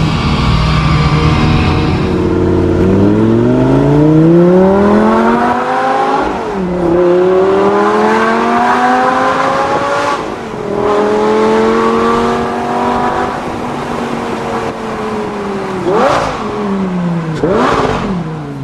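Lamborghini Gallardo Spyder's V10 accelerating hard through the gears: the exhaust pitch climbs, drops at upshifts about six and ten seconds in, then holds steady before two quick rises and falls in pitch near the end.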